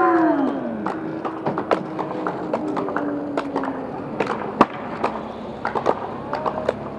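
Irregular sharp clicks and taps of footsteps on concrete steps as a skater walks the stairs carrying his skateboard. A pitched sound dies away in the first half second.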